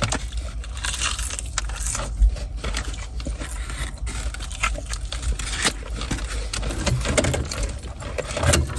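Objects being handled, with irregular small clicks and rustles over a steady low rumble.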